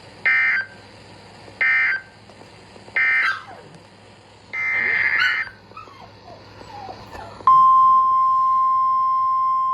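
NOAA Weather Radio Emergency Alert System signal: short bursts of the SAME digital header, a screechy two-tone data chirp, repeat with pauses between them. About seven and a half seconds in, the loud steady 1050 Hz warning alarm tone starts, which heralds a new warning, here a tornado warning.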